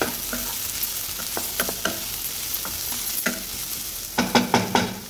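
Sliced potatoes, onion and green pepper sizzling in oil in a non-stick kadai, stirred with a wooden spatula that scrapes the pan now and then, with a quick run of scrapes about four seconds in.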